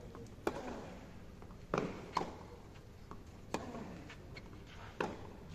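Tennis rally on a clay court: the ball struck by rackets and bouncing, about five sharp pops spaced roughly a second apart.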